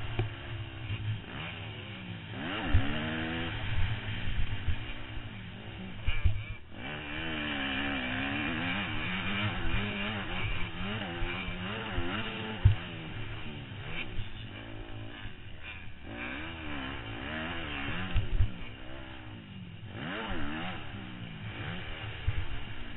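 Motocross dirt bike engine heard from the rider's helmet, revving up and falling back again and again as it pulls through the gears and backs off. A few short, sharp thumps stand out above the engine.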